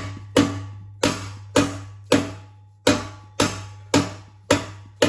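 A mallet striking a block of wood held against a BMW M2's exhaust tip: about nine sharp blows, a little under two a second, each ringing briefly, to knock the tip off its pressure clips.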